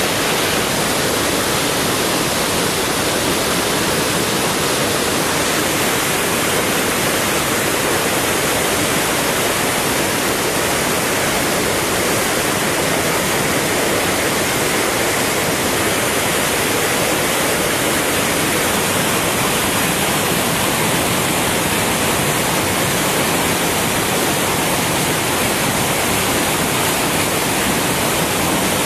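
River rapids rushing around a boulder: a loud, steady, unbroken noise of white water.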